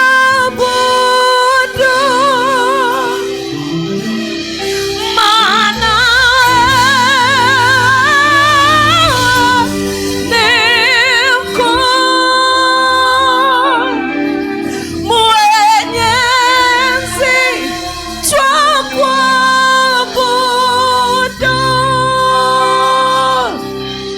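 Gospel worship music: a singer holding long, wordless notes with wide vibrato over steady instrumental accompaniment.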